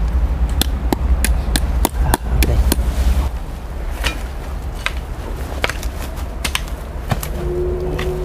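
Irregular sharp knocks and scrapes of hand tools working earth and stones: a hoe chopping and raking backfill soil and rocks. A heavy low rumble sits under the knocks for the first three seconds.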